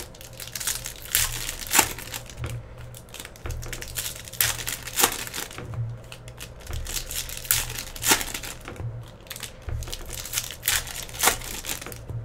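Foil trading-card pack wrappers crinkling and being torn open by hand, in irregular crackles and snaps.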